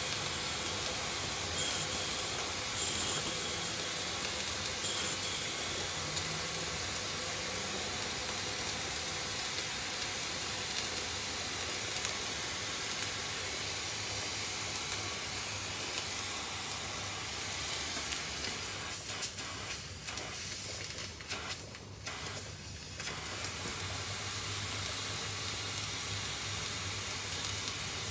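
Steady hiss of steam escaping from a small live-steam boiler and Stuart Models James Coombes table engine; it thins out and breaks up for a few seconds about twenty seconds in, then comes back. The leak is steam dumping past a seal, which the owner puts down to a worn O-ring.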